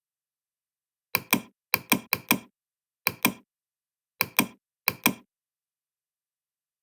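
Sharp knocks in pairs, the two strikes of each pair about a fifth of a second apart, six pairs at uneven intervals with dead silence between them.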